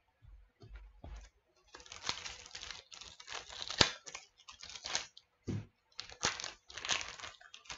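Foil wrapper of a 2022 NRL Traders trading-card pack being torn open and crinkled by hand: a run of irregular crackly rips and rustles from about two seconds in, after a few soft knocks of cards being handled.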